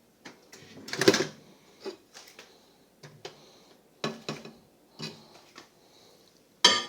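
Hard objects being handled, with scattered clicks, knocks and clinks; the loudest knock comes about a second in and another just before the end.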